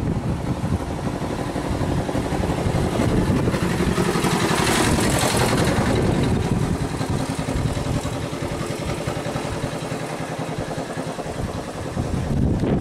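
A boat's engine running steadily in a low, pulsing rumble, with a rushing hiss that swells around the middle.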